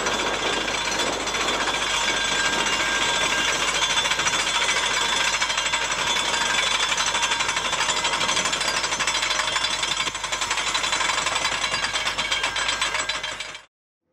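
Mount Washington Cog Railway steam locomotive 'Ammonoosuc' working hard uphill on the rack: a loud, rapid, steady chuffing of its exhaust with the clatter of its cog gearing, cutting off abruptly near the end.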